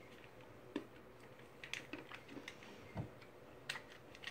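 Faint scattered clicks and taps from hands working at a Mexican candy packet that won't open, with one low knock about three seconds in.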